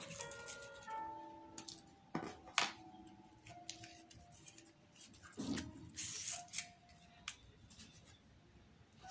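Scissors cutting a strip of crepe paper, with paper rustling and crinkling as it is handled. Several short handling noises are followed by a longer stretch of cutting a little past halfway.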